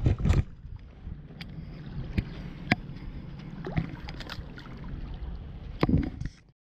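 Shallow lake water sloshing and lapping around a hand as a smallmouth bass is released at the shoreline, with a low wind rumble on the microphone and scattered small splashes and clicks. There is a louder splash about six seconds in, and the sound then cuts off abruptly.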